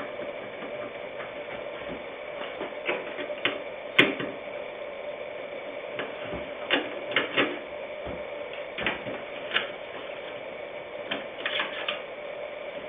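Irregular clicks and light knocks of a screwdriver and small computer parts being handled as a desktop computer's power supply unit is unscrewed and lifted out. The loudest click comes about four seconds in, and a steady faint hum runs underneath.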